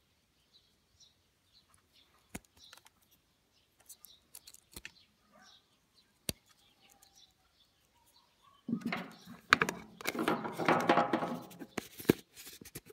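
Hands handling small plastic parts of a Saeco coffee machine: a few light clicks, then, from about two-thirds of the way in, louder irregular rubbing, knocking and clicking of plastic close to the microphone.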